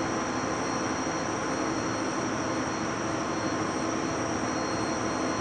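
Steady background noise, an even hiss with faint high-pitched whines, and no distinct event.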